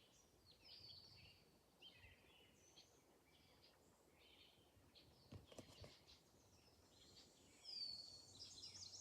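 Near silence with scattered faint bird chirps, the clearest a short downward-sweeping call near the end.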